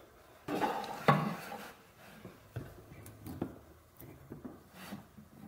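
Handling noise from a plastic welding gun being worked into a cracked plastic snowmobile hood: a burst of rustling about a second in, then a few light clicks and knocks.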